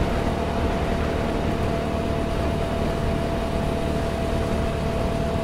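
TVS Apache 200 single-cylinder motorcycle cruising at a steady speed of about 65 km/h, its engine running evenly under wind and road noise. A thin steady whine runs underneath.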